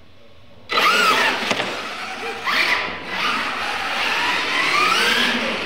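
Brushless electric motors of Losi LMT radio-control monster trucks whining and climbing in pitch again and again as they launch off the start, with tyres scrubbing on slick concrete. It starts suddenly under a second in.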